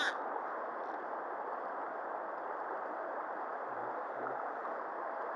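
Shallow river running over pebbles: a steady rushing of water, with a brief hiss right at the start.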